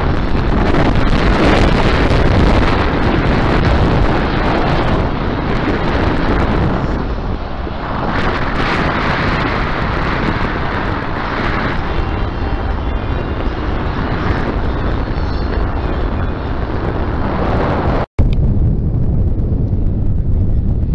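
Heavy wind buffeting the camera's microphone, with the distant noise of a drift car's engine and tyres underneath. About 18 seconds in the sound cuts out for an instant with a click, and after that mostly the wind rumble is left.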